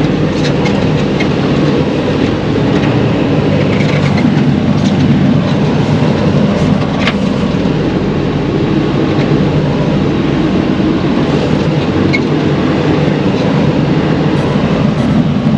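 Vehicle engine running steadily, a loud, even low drone with a few light clicks.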